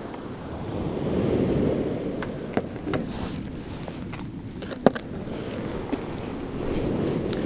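Small waves breaking on a shingle beach, swelling twice, with some wind on the microphone. Over it come scattered sharp clicks and knocks of fishing tackle being handled on the pebbles, the loudest a little before five seconds in.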